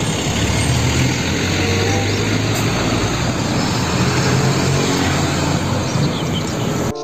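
A heavy dump truck's diesel engine running steadily as the truck drives by, with road and tyre noise. The sound cuts off abruptly near the end.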